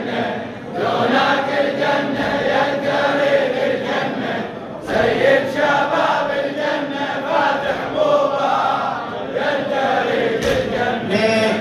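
A large group of men chanting the refrain of a Shia latmiya (lamentation hymn) together in unison, in long sustained lines.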